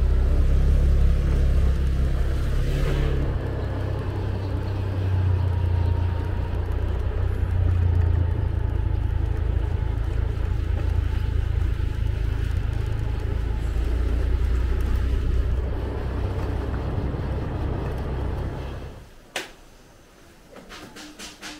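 Motorcycle engine with wind on the microphone, a steady low rumble that stops suddenly about nineteen seconds in, followed by a sharp click and a few faint ticks.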